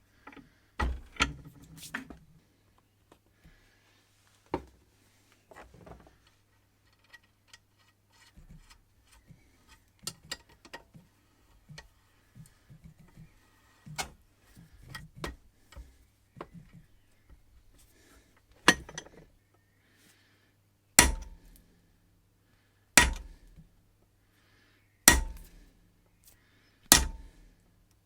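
Metal tools and parts clinking as they are handled on a workbench. About two-thirds of the way in come loud, sharp blows on metal, about one every two seconds, each ringing briefly, like a hammer striking steel. A faint steady hum runs underneath.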